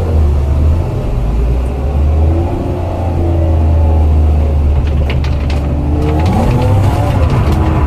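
BMW M52B28 2.8-litre straight-six engine running hard, its revs rising and falling as the car is drifted. There are a few sharp clicks about five seconds in.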